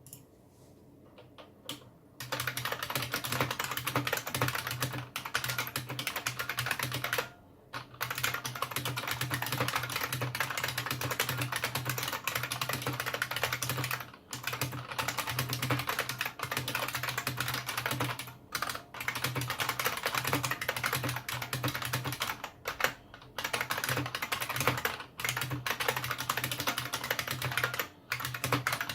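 Fast, continuous typing on a Unicomp Model M keyboard with buckling-spring switches: a dense clatter of loud, clicky keystrokes. It starts about two seconds in, with a few short pauses.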